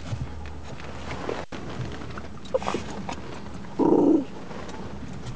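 Small dog in a car giving one short, loud bark about four seconds in, over a steady low hum.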